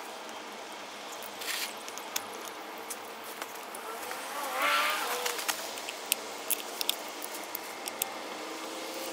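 A motor vehicle passing by, its engine note swelling and bending in pitch about four to five seconds in. Scattered light clicks sit over a faint steady background.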